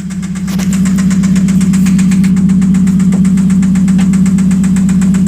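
1991 Mazda Miata's 1.6-litre four-cylinder engine idling with a rapid, even knock, growing louder about half a second in and then holding steady. The oil pressure is still good.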